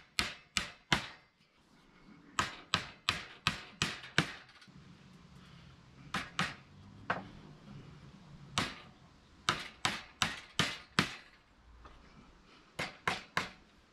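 Claw hammer driving nails into timber: sharp strikes in short runs of a few blows, about two or three a second, with pauses between runs.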